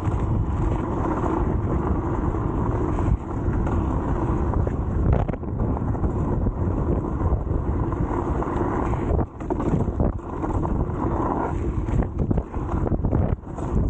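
Wind buffeting the action-camera microphone over the rumble and rattle of an electric scooter riding off-road. The noise dips briefly a few times.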